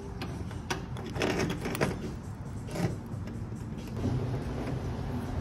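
Metal clicks and scraping as a T-handle lock is turned in the door of a Dixie Narco 501e vending machine and the door is pulled open, with the sharpest knocks about two and three seconds in. A steady low hum sets in about four seconds in.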